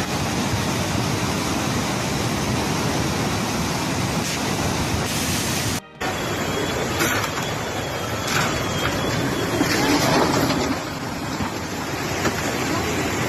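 Muddy floodwater rushing down a street as a torrent, a steady churning noise of water. About six seconds in the sound drops out for a moment and returns as floodwater flowing through a flooded street, with a few louder swells.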